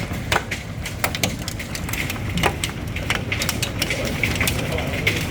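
Hailstones striking hard surfaces in irregular sharp cracks, several a second, over a steady rush of rain.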